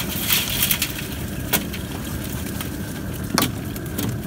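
Live crawfish sliding and clattering out of a plastic cooler into a perforated aluminium boil basket: a continuous crackling rattle of shells, with two sharper knocks about a second and a half and three and a half seconds in.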